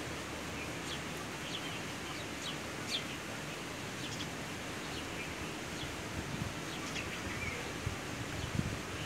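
House sparrows chirping: many short, high chirps at irregular intervals over a steady background hiss, with a few soft low bumps in the second half.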